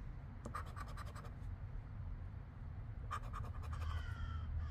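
A poker-chip scratcher rubbing the latex coating off a lottery scratch-off ticket. It comes in two short runs of quick, rasping strokes, about half a second in and again about three seconds in.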